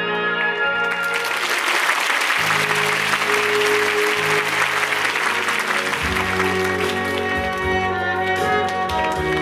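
Audience applause over the musical's instrumental curtain-call music. The clapping swells in about a second in and thins near the end, while the band music with its bass line plays on underneath.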